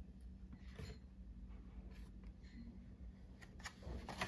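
Faint handling noise from a carded diecast toy, its plastic blister and cardboard backing giving light rustles and small clicks, with a few sharper clicks near the end.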